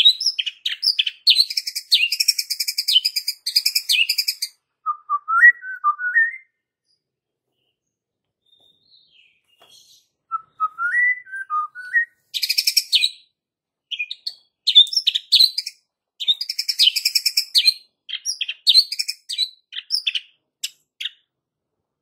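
White-rumped shama (murai batu) singing: long runs of rapid, harsh rattling notes broken by short lower whistled phrases, with a pause of about four seconds in the middle.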